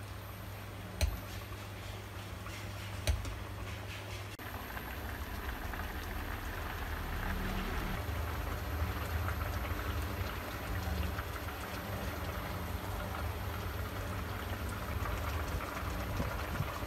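Barramundi in tomato sauce simmering in a stainless steel frying pan on an induction cooktop: a steady bubbling hiss over a low hum. There are two light clinks of a metal ladle against the pan in the first few seconds. About four seconds in the bubbling grows louder and a faint high whine starts.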